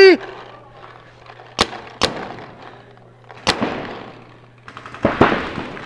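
Paintball markers firing isolated single shots: two sharp pops about half a second apart, then another about a second and a half later, over a faint steady low hum, with a short rush of noise near the end.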